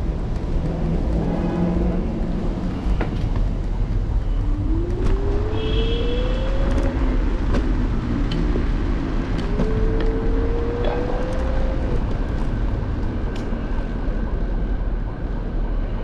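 Apollo Explore electric scooter riding over sidewalk pavement, a steady low rumble. Twice a rising whine climbs over about two seconds as the motor speeds up, and a few faint ticks come through.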